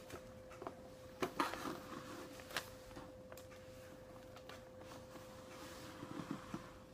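Soft paper handling as a receipt is brought out: a few brief rustles and light taps, about a second in and again a little later, over a faint steady hum.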